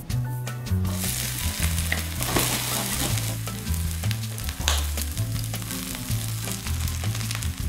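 Minced aromatics and chopped scallion sizzling in hot oil in a frying pan, the sizzle starting about a second in, over background music with a steady bass line.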